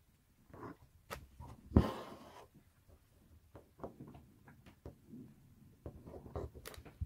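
Handling noise from hands on the embroidery hoop and fabric: scattered light clicks, taps and rustles, with one louder knock and a short rustle about two seconds in.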